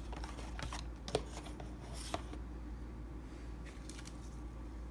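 Light handling sounds of packaged snacks being put away: a few soft clicks and plastic rustles, mostly in the first two seconds, over a low steady hum.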